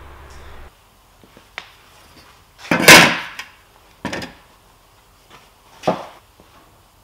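Handling noises on a wooden workbench as a sheet-metal motor dust guard is moved and a cloth is shaken out: a few short knocks and rustles, the loudest about three seconds in.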